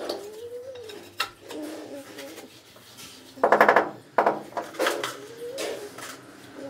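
Tile-setting sounds: a trowel scraping and clinking in tile adhesive, then a few sharp knocks as a rubber mallet taps a plank floor tile down into the adhesive bed.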